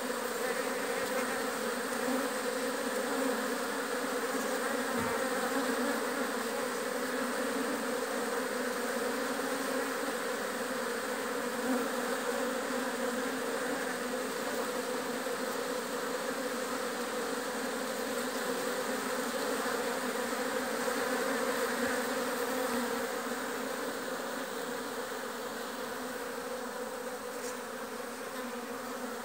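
A large colony of honeybees clustered on exposed comb, humming steadily as one continuous buzz of many bees, a little softer near the end.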